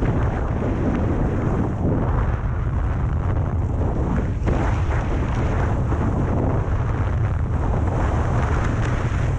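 Wind buffeting a helmet-mounted camera's microphone as a skier runs downhill, a steady rushing with a deep rumble, over the hiss of skis sliding on snow.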